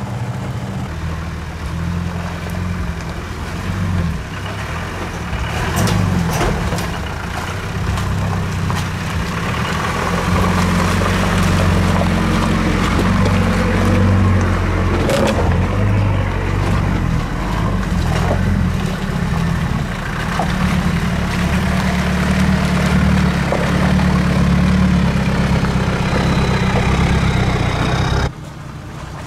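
Off-road 4x4 engines running at low revs as the vehicles crawl down a rocky track, with a few sharp knocks of tyres and underbody on stones. The engine sound drops away suddenly near the end.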